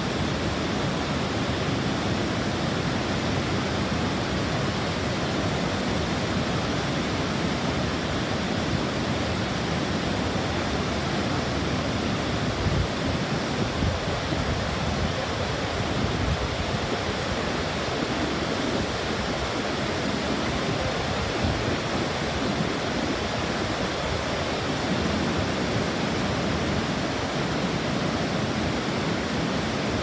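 Khone Phapheng Falls on the Mekong: a steady rush of heavy white water pouring over wide rock cascades.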